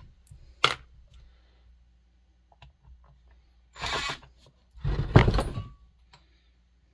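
Tools and metal chainsaw parts handled on a workbench: a sharp click under a second in, then two short rattling clatters around the fourth and fifth seconds, the second the loudest.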